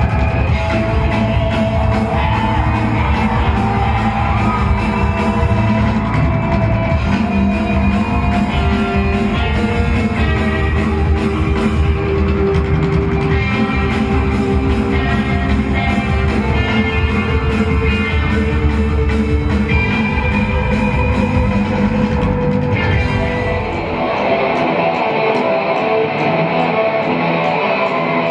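Rock band playing live on drum kit, electric guitars and bass. About 24 seconds in, the drums and bass drop away and the guitar carries on alone.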